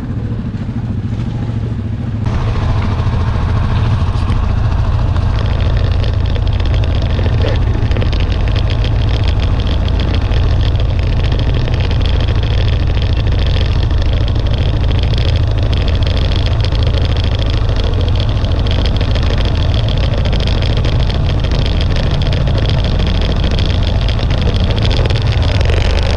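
ATV engine running steadily, with a low hum, getting louder about two seconds in.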